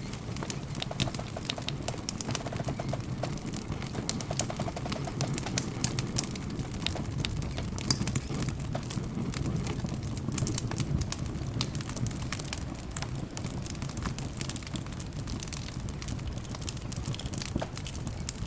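Wood campfire burning, with frequent sharp crackles and pops over a low steady rumble of the flames. A bird calls faintly in the background a few seconds in.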